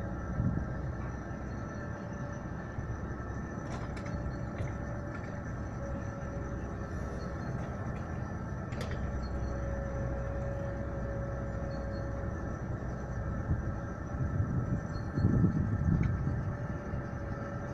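Komatsu PW140 wheeled excavator working as it loads a dump truck, its diesel engine running steadily with a faint whine. A few sharp clicks are heard, and the low rumble grows louder about fifteen seconds in.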